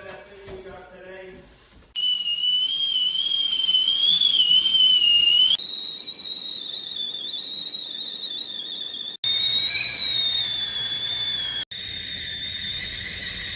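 Stainless steel stovetop kettle whistling at the boil: a loud, high, wavering whistle starting about two seconds in. It breaks off and resumes several times with a sudden change in pitch.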